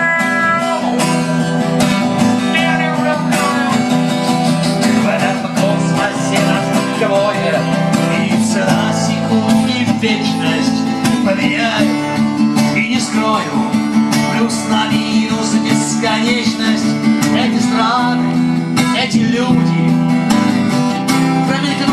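Acoustic-electric guitar strummed steadily through a stage sound system, an instrumental passage of a song.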